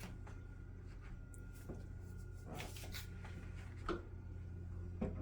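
Faint kitchen handling noises: a few soft scrapes and taps of utensils and a mixing bowl, over a steady low hum.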